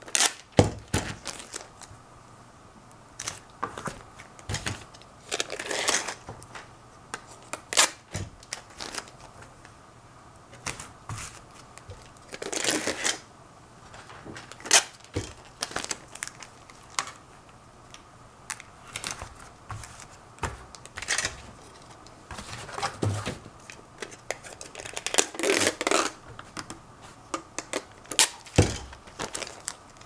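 Clear plastic packing tape being pulled, crinkled and pressed down by hand onto a painted cardboard box. Scattered short clicks and taps, with a few longer stretches of about a second where tape is pulled and rubbed.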